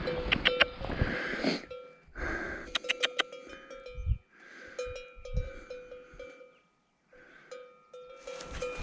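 Cowbells on grazing cattle clanking irregularly, each clank ringing on in several steady tones.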